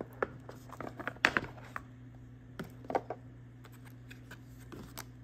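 Scattered clicks, taps and light rustling of a small cardboard gift box being opened one-handed, the sharpest clicks a little over a second in. A steady low hum runs underneath.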